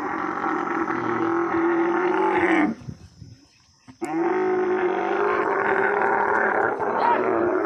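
Camel bellowing: a long, loud call of nearly three seconds, a short break, then a second long call about four seconds in.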